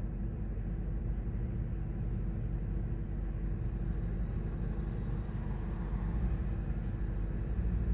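A steady low mechanical rumble with a constant droning hum.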